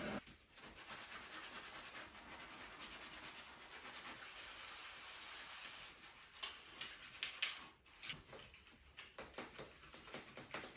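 Faint rustling and handling noises, with a series of short, sharp clicks and taps in the second half.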